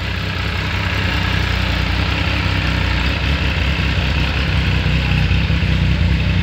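Benelli motorcycle engine idling steadily, a continuous low pulsing run.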